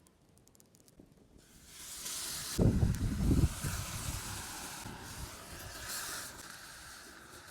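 Meat sizzling over a campfire: a loud hiss sets in about a second and a half in and slowly fades. A brief low rumble comes about three seconds in.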